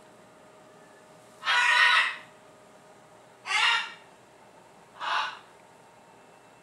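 A parrot giving three short harsh squawks a second or so apart; the first, about a second and a half in, is the loudest and longest, and each after it is quieter.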